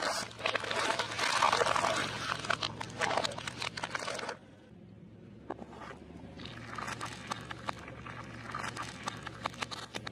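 Car tyre rolling over plastic drink bottles, crackling and crunching loudly as they are crushed, cutting off suddenly about four seconds in. After a pause comes a softer crackle as a plastic tub of ice cream is squashed flat under the tyre.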